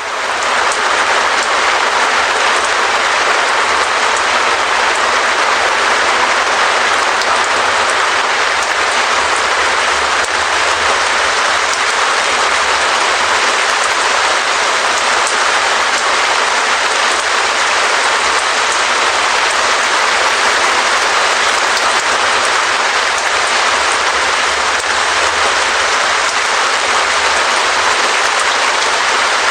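Steady rain pattering on a Perspex (acrylic plastic) sheet, a dense, even patter of drops.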